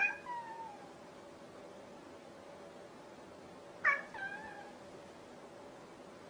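A grey tabby cat meowing twice, about four seconds apart. Each meow is short and slides down in pitch at the end.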